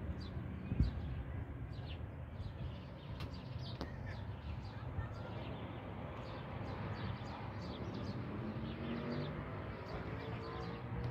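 Small birds chirping in short, repeated high calls over a steady low background of outdoor street noise, which grows into a fuller low murmur in the second half.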